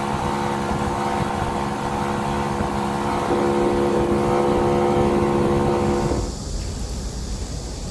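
Small fishing boat's motor running steadily under way, picking up a little in pitch about three seconds in. About six seconds in it cuts off abruptly and gives way to a quieter hiss.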